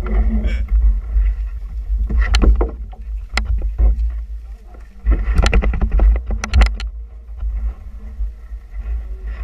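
Low rumbling buffeting on a hip-worn action camera's microphone from wind and handling, broken by scattered sharp clicks, knocks and rustles of clothing against the camera.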